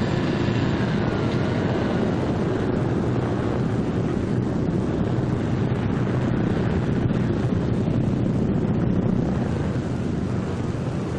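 Martin B-26 Marauder's twin Pratt & Whitney R-2800 radial engines running steadily, warmed up.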